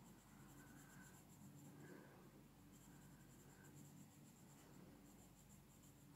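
Faint scratching of a coloured pencil shading on paper, close to near silence.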